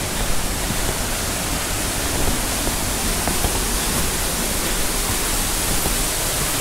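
Steady rush of falling water from a waterfall and rocky stream: an even, unbroken hiss.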